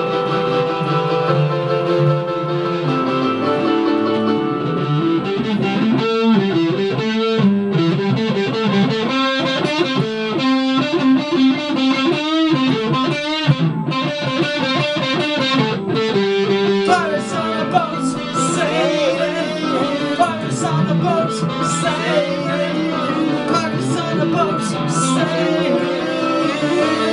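Instrumental break played on keyboard and electric guitar: held chords at first, then choppy stop-start chords. About two-thirds of the way in, an electric guitar solo with bent, gliding notes starts over the keyboard chords.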